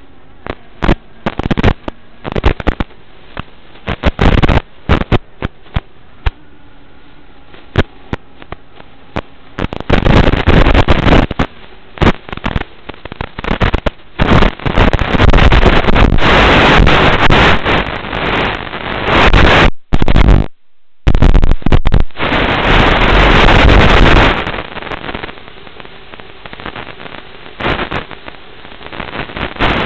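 Crackling radio static from an analog FPV video link: many sharp pops, then long loud bursts of hiss, with a brief total dropout to silence about two-thirds of the way through. Faint steady tones sit under the crackle in the first few seconds.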